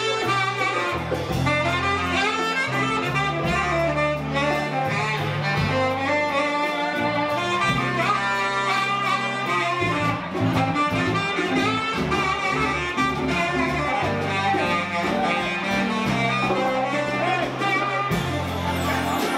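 Live band playing: a horn melody over electric bass, guitar and drums, continuous and full.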